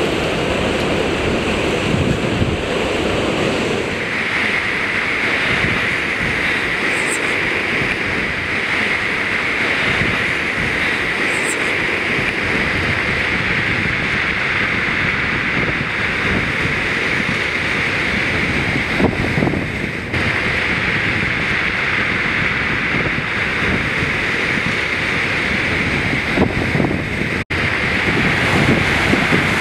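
Ocean surf breaking and washing over a cobble beach and rocks, a continuous rushing with wind buffeting the microphone. The sound cuts out for an instant near the end.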